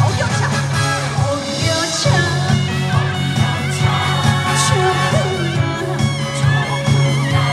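Trot song playing over a stage sound system: a steady, pulsing bass beat under a melodic lead line.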